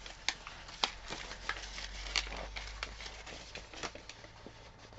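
Rustling and irregular crackling of a large paint-by-numbers canvas sheet being handled and rolled.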